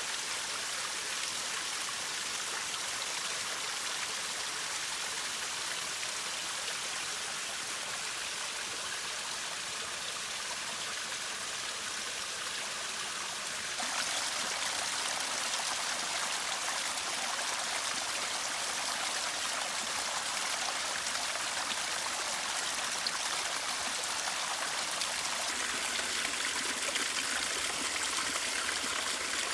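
Small waterfall running over rock crevices, a steady rush of falling and splashing water. It jumps suddenly louder about halfway through.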